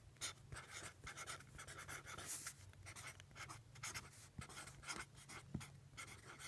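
Faint scratching of a toy sonic screwdriver's invisible-ink pen nib writing on paper, in many short, irregular strokes.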